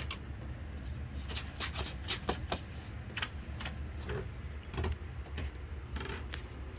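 Irregular light clicks and knocks over a steady low hum.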